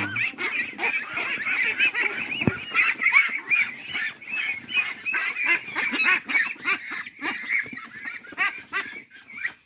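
A crowded pen of white farm ducks calling all at once, many overlapping quacks several a second, as they are grabbed by hand for harvest. The calling thins out over the last two seconds.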